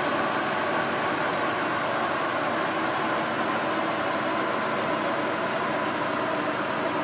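Steady rushing whir in a chassis dyno cell: the big cooling fan blowing at the car, with the Porsche 718 Boxster S sitting on the rollers at low running and not being revved. Faint tones in the whir sag slightly lower over the seconds.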